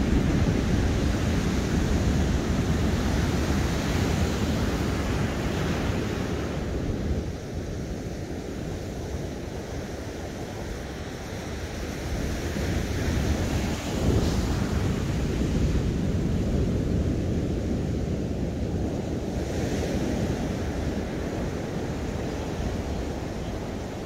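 Ocean surf breaking and washing ashore, with wind buffeting the microphone. The wash swells and eases in slow surges, loudest in the first few seconds and again from about halfway through.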